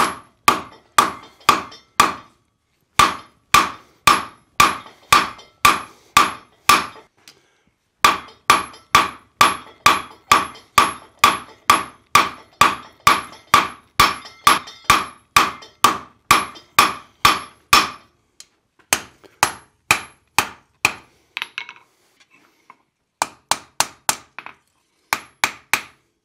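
Blacksmith's hammer striking a red-hot iron bar on the anvil, about three blows a second in runs broken by short pauses, each blow ringing the anvil. Near the end the blows come lighter and quicker.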